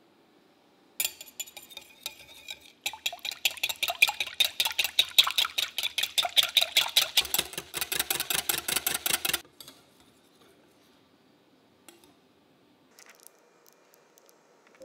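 Wire balloon whisk beating whipping cream in a glass bowl by hand: a clink about a second in, then fast, even strokes at several a second that stop after about six seconds.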